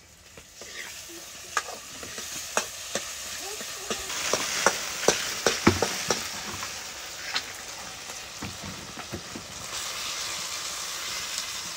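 Hot oil sizzling in a black wok (kadai) over a wood fire as pieces of raw fish go in, the sizzle growing louder a few seconds in. Sharp clinks of the metal ladle against the pan, most of them in the middle.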